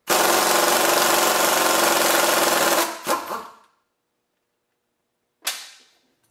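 Pneumatic impact wrench hammering for nearly three seconds, then a brief second burst, as it undoes one of the bolts holding the wheel hub to the brake rotor. A single sharp knock with a short ring near the end.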